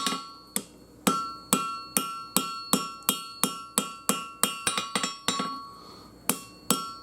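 Hammer blows on an anvil forging the handle of a 5160 steel throwing knife. The strikes come steadily, about two to three a second, each followed by a ringing note, with a short pause about a second before the end.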